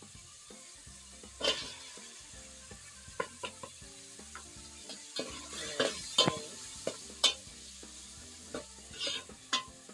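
A metal spoon stirring smoked fish into palm oil and onions frying in a metal pot, with irregular knocks and scrapes against the pot over a faint sizzle.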